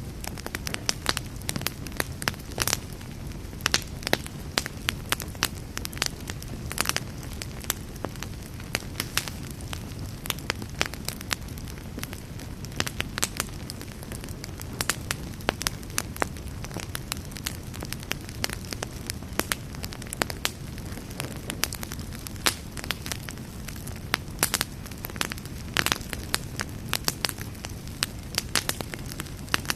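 Campfire burning with a steady low rumble and frequent irregular sharp crackles and pops.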